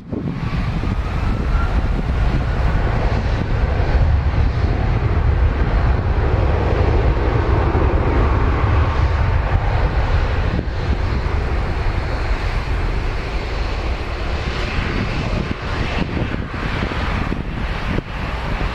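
Boeing 757 jet engines at takeoff power on the takeoff roll: a loud, steady rumble that swells to its peak mid-way, with a faint whine rising in pitch in the first couple of seconds. Wind buffets the microphone.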